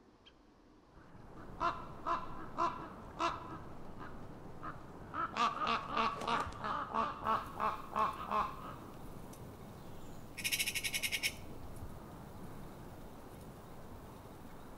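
Eurasian magpies calling: a few separate harsh calls, then a quick run of calls about two or three a second, and about ten seconds in a short, rapid chattering rattle.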